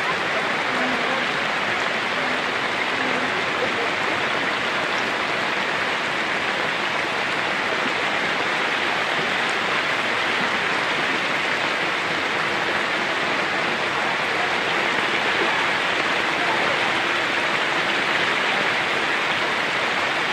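Heavy rain and rushing floodwater: a loud, steady hiss with no let-up.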